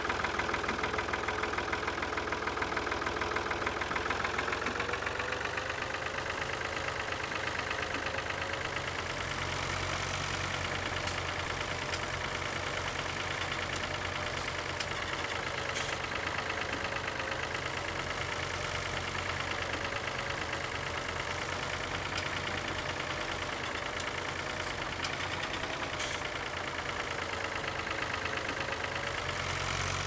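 Tractor engine running steadily at idle with a knocking beat, its pitch slowly wavering up and down. A few faint clicks sound over it.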